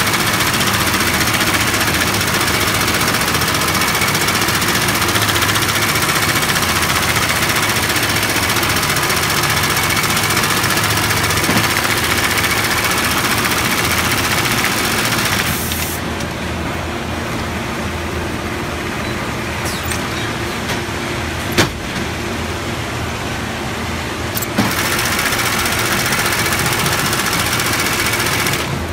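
Automatic LoopSEW65 FIBC loop attaching sewing machine stitching through heavy woven bag fabric and lifting-loop webbing: a loud, steady, fast machine noise. About halfway through it stops, leaving a lower hum with a few sharp clicks. It starts again for a few seconds near the end.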